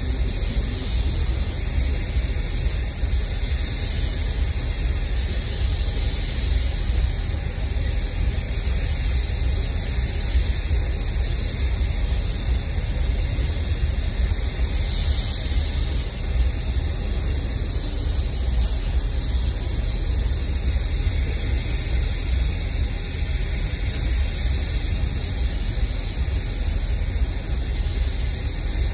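Long freight train of tank cars rolling past: a steady rumble of steel wheels on rail with a hiss above it.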